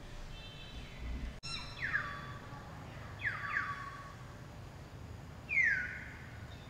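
High-pitched animal calls sweeping downward in pitch: one about a second and a half in, a quick pair near the middle, and a louder one near the end.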